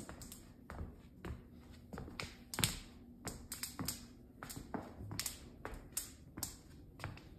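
New luxury vinyl plank flooring cracking under footsteps: sharp, irregular clicks and snaps, several a second, with the loudest about two and a half seconds in. The cracking comes from the tongue-and-groove joints between planks as they are walked on.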